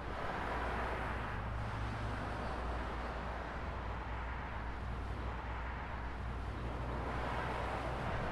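Steady street traffic noise: a low engine rumble under a constant hiss.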